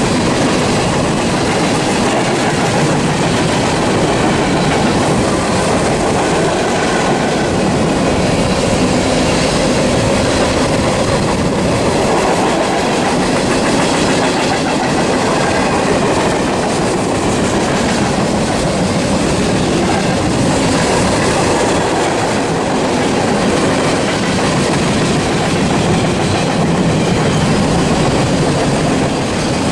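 Norfolk Southern freight train's cars rolling past on the track: a steady, loud rumble and clatter of steel wheels on the rails that holds even, with no horn.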